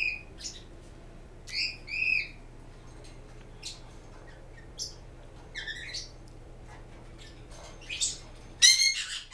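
Caged pet birds calling: scattered squawks and chirps, with two arching calls about two seconds in and a loud harsh squawk near the end, over a faint steady hum.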